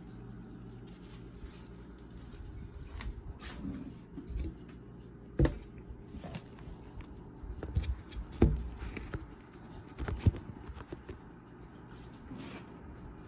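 Handling noises from a vacuum cleaner's dust cup and parts being emptied and cleaned out: scattered clicks and knocks, the sharpest about five and a half, eight and a half and ten seconds in.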